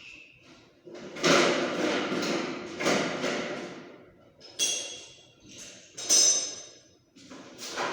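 A series of knocks and scraping, followed by two sharp metallic clinks that ring briefly, as tools or parts are handled and struck.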